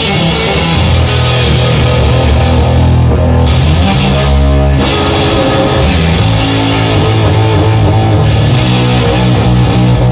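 Rock music with guitar and drums, without singing. About three and a half seconds in the high end drops out briefly and only the low notes carry on before the full band returns.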